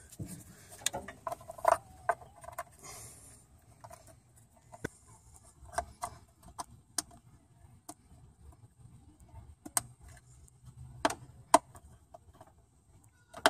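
Irregular small clicks and knocks of a wiring harness connector and its plastic cover being handled and fitted in place on the engine, the sharpest click near the end.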